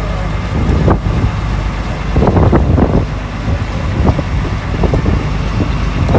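A fishing boat's engine running steadily, with wind buffeting the microphone in irregular gusts.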